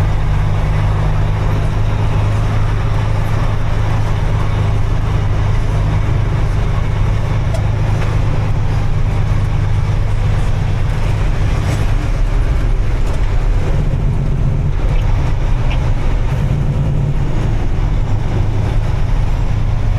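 Motor vehicle running steadily, a continuous low engine hum with road noise over it.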